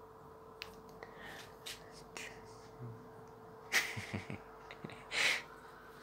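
Quiet room with a faint steady hum and a few small clicks, broken by two short breathy puffs about four and five seconds in.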